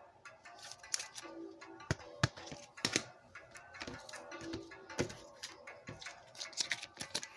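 Trading cards being handled and flipped through by hand, a string of irregular sharp clicks and snaps of card stock, over quiet background music.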